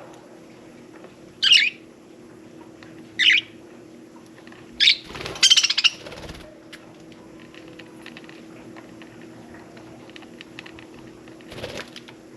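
Budgerigar (budgie) giving three short, sharp contact calls spaced a second and a half or so apart, then a quick chattering burst, with one weaker call near the end; faint light ticks in between.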